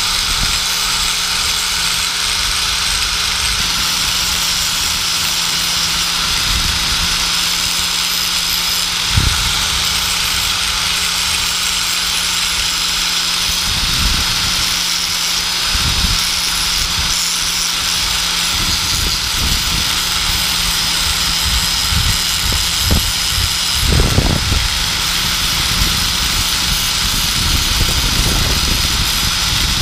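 Electric angle grinder running steadily with a constant high whine, as a die-cast metal toy car body is held against its spinning abrasive disc to strip it to bare metal. There are a few short low bumps along the way.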